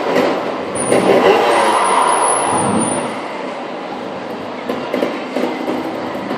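Motorcycle engine running and revving up about a second in, echoing in a large hall, over a crowd's murmur.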